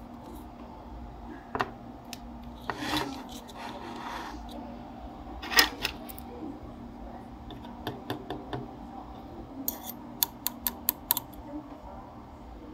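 Hands and a plastic adjusting tool handling an open CD player's laser mechanism. There is rubbing and scraping, a sharp click about five and a half seconds in, and a quick run of about six small clicks near the end.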